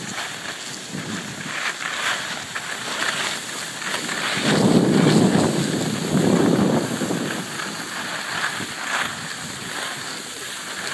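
Wind rushing over the microphone, swelling to its loudest for a few seconds in the middle, with the scrape of skis and a snowboard sliding over packed snow during a downhill run.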